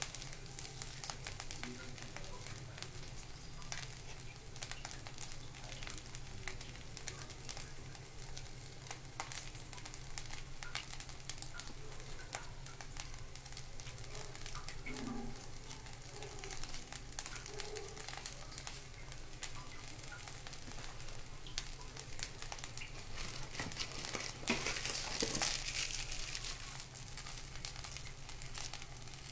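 Tempered rice sizzling and crackling in a steel kadai, with a steady low hum underneath. Near the end a plastic packet crinkles loudly for a couple of seconds.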